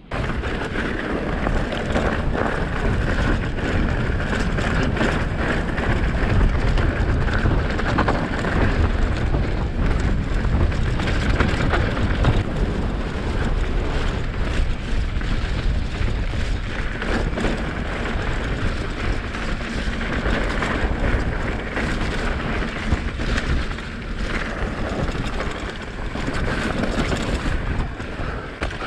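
Mountain bike ridden fast on a trail, heard from a GoPro on the bike or rider. There is a steady rush of wind and tyre noise, with frequent knocks and rattles from the bike over rough ground.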